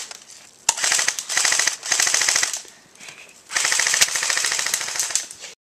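Battery-powered airsoft AK-74 replica firing full-auto in rapid, evenly spaced shots, in a few short bursts and then a longer burst of about two seconds near the end.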